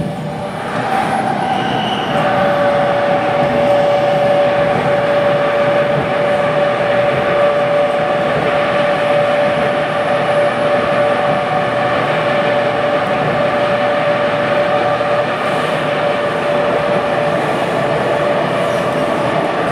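Interior running noise of a C751B metro train on the East West Line: wheels rumbling on the track, with the steady high whine of its Fuji Electric IGBT-VVVF traction equipment. The noise grows louder about two seconds in and then holds level.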